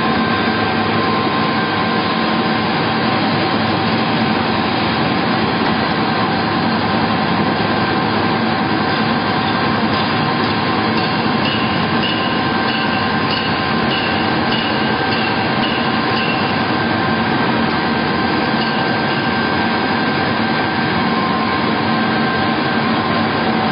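Vertical ring-die wood pellet mill (LS-550) running steadily while it presses and discharges wood pellets: a loud, even machine drone with several steady whining tones.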